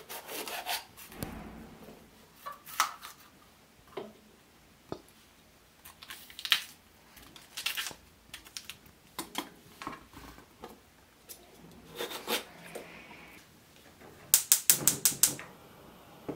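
A kitchen knife tapping and scraping on a plastic cutting board and against a bell pepper as it is cored and sliced, in irregular sharp knocks. Near the end, a quick run of about seven sharp clicks, the spark igniter of a gas cooker burner being lit.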